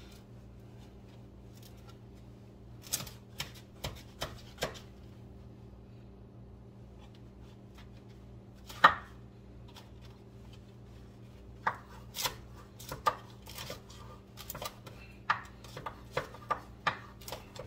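Chef's knife cutting a baguette into rough chunks, the blade knocking on a wooden cutting board. A few cuts come about three seconds in, then one loud knock near the middle, then a quicker run of cuts through the last six seconds.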